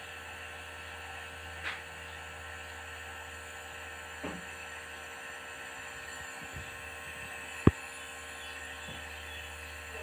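Compressor nebulizer running with a steady motor hum. One sharp click comes about three-quarters of the way through.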